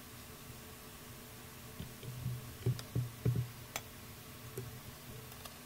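Faint handling sounds of a steel try square and a small wooden block being set and shifted on a table: a few soft knocks in the middle, with scattered light ticks as the square and a mechanical pencil are positioned for marking.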